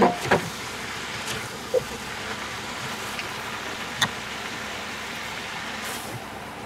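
Meat and vegetables sizzling steadily in a cast-iron Dutch oven over charcoal, with a few sharp knocks of a wooden spatula against the pot, at the start and again about four seconds in.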